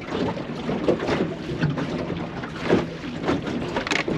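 Wind buffeting the microphone with water slapping irregularly against the hull of a small drifting boat, a run of uneven splashes and knocks.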